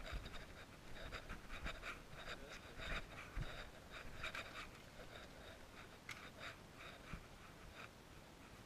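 Faint, irregular rustling and scuffing of a landing net with a carp in it being carried and set down on wooden dock boards.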